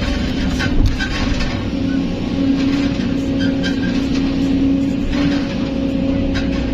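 Kobelco SK200 excavator's diesel engine running steadily under load with a hydraulic whine, heard from inside the cab as the arm swings and the bucket digs into sand, with scattered clunks.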